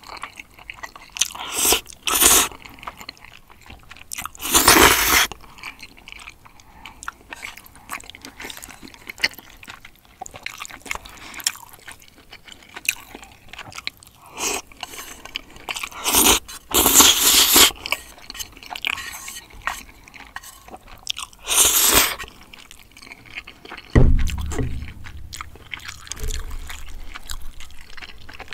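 Close-up eating sounds of a person chewing spicy braised chicken with glass noodles, with three loud slurps of the noodles. A low thud comes near the end.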